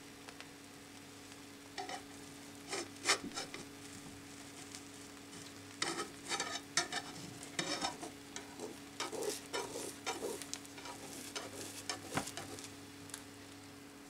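Nylon slotted spatula scraping and tapping against a non-stick frying pan in short scattered strokes, as the edge of a pan-fried egg-bread omelette is prodded to see whether it is ready to flip. Beneath it, the egg sizzles faintly in the pan.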